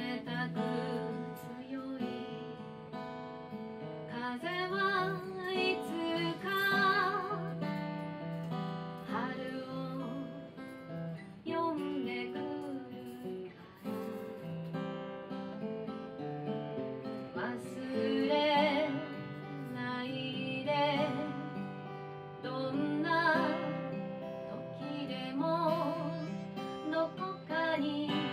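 A woman singing a song over her own strummed acoustic guitar, her voice wavering with vibrato on held notes.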